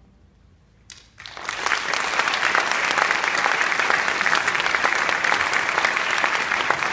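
Audience applauding in an auditorium: after a second of near silence the clapping breaks out and quickly swells to steady, full applause.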